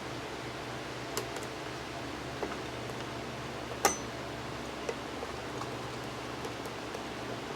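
A few light, sharp clicks and taps of small hard parts being handled, the loudest about halfway through, over a steady low hum.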